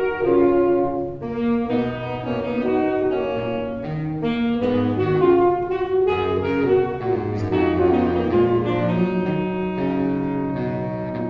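Saxophone quartet of soprano, alto, tenor and baritone saxophones playing a melody in harmony, with the baritone carrying a moving bass line underneath.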